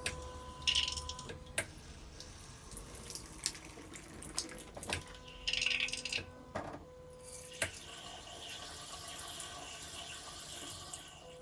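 Electronic bidet toilet seat spraying water: two short hissing spurts, a few sharp clicks, then a longer steady spray that cuts off near the end.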